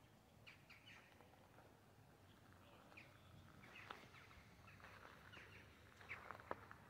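Near silence: faint outdoor ambience with scattered, faint short bird chirps.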